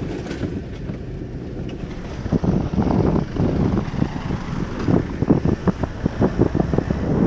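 Steady rumble of a car driving. About two seconds in it gives way to wind buffeting the microphone of a camera mounted outside the moving car, in irregular gusts that grow louder.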